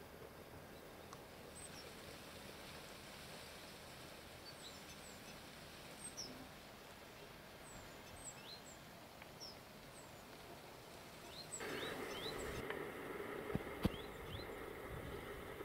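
Birds chirping faintly now and then over quiet outdoor ambience. About twelve seconds in, a steady hum with several held tones comes in, louder, with a few sharp clicks.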